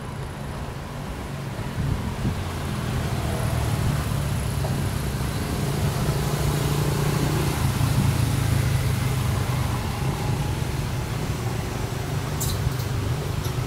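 A low, steady engine rumble like nearby motor traffic, growing louder over the first few seconds and then holding steady.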